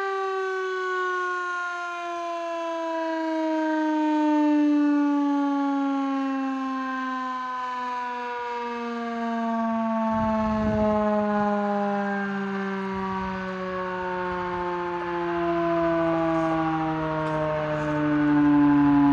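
Federal Signal Model 3 fire siren winding down after a test blast, its tone falling slowly and evenly in pitch. A low rumble joins about halfway through.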